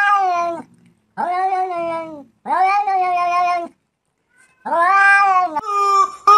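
A cat meowing four times in long, drawn-out calls about a second each, with short pauses between. Near the end a rubber chicken squeaky toy lets out a steady squawk.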